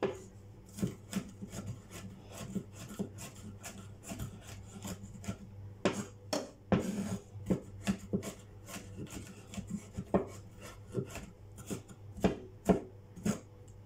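Kitchen knife mincing garlic on a wooden cutting board: quick, irregular chopping knocks of the blade on the board, with some scraping as the garlic is gathered and chopped again.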